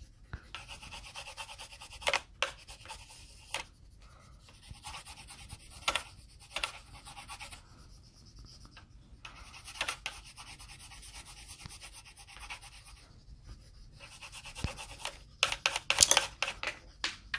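Colouring on paper: quick back-and-forth scratching strokes of a colouring tool, coming in several spells of a few seconds each with short pauses between.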